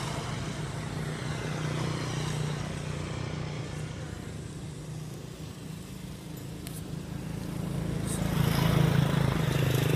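A motor vehicle engine running steadily nearby, growing louder about eight seconds in.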